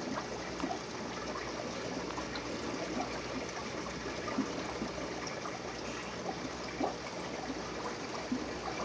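Aquarium water bubbling and trickling steadily from the tank's air-driven filtration, with many small scattered pops of bursting bubbles.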